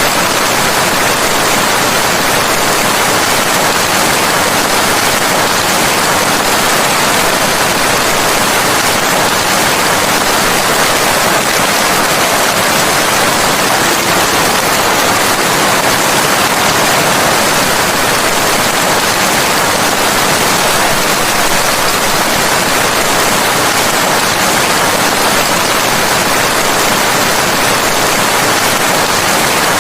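Steady heavy rain: an even, unbroken hiss of rainfall with no distinct drops or thunder.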